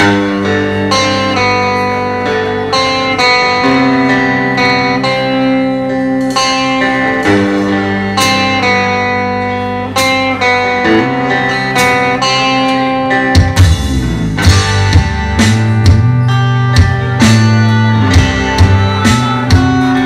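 Live band music: an electric guitar picks out sustained single notes and chords, and about thirteen seconds in the bass and drums come in with regular hits.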